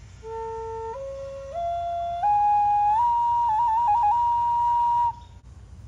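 Wooden end-blown flute playing a rising run of five notes, one step at a time, then holding the top note with a few quick trills before stopping about five seconds in.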